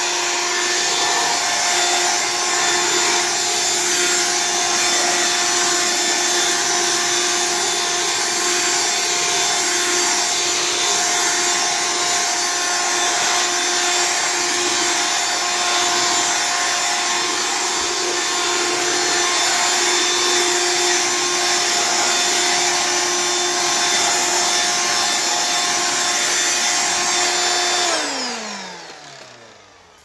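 Dirt Devil Ultra handheld vacuum cleaner running with a steady whine. Near the end it cuts off and the motor winds down, its pitch falling away.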